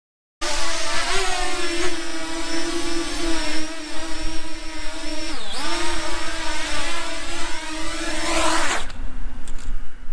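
Small quadcopter drone's propellers whining steadily, the pitch dipping briefly and recovering about five seconds in, then cutting off sharply near the end, followed by a few faint clicks.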